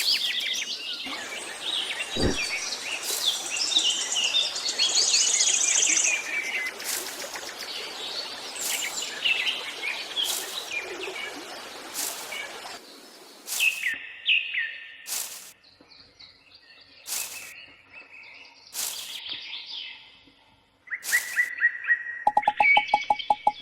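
Birds chirping and singing, with sharp clicks every second or two, thinning out in the second half. Near the end a different, pulsing call begins.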